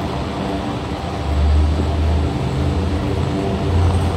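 Austal 47.5 m waterjet catamaran fast ferry pulling away under power: a steady low drone of its diesel engines with the rush of water thrown from its jets. It gets louder about a second in.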